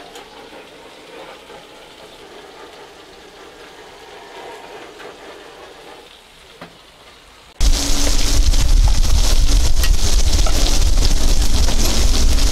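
Food sizzling on a steel flat-top griddle, moderate at first over chicken and potatoes. About two thirds of the way in it jumps suddenly to a much louder, dense sizzle of eggs frying in oil.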